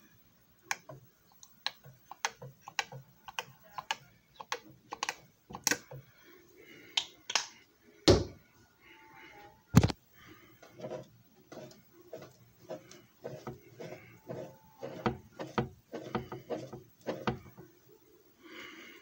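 Irregular clicks and knocks of hard plastic objects being handled and set down, about two or three a second, with two louder knocks about eight and ten seconds in.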